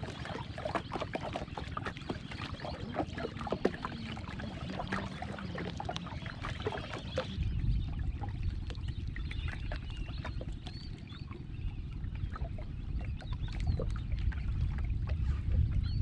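Water lapping and splashing against a wooden boat's hull as it moves across the lake, with many small knocks and splashes. About halfway in, this gives way to a steady low rumble.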